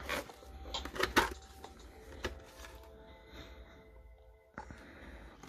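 A plastic figure blister tray and its cardboard box being handled, giving several sharp clicks and knocks, the loudest about a second in. Faint background music plays under it.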